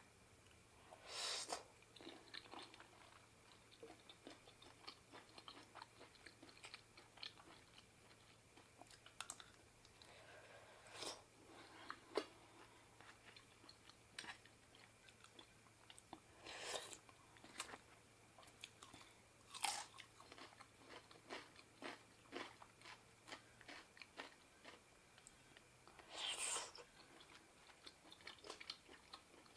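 Faint close-up eating sounds of a person eating spicy seafood papaya salad: chewing and crunching made of many small clicks, with a handful of louder, longer mouth sounds every few seconds.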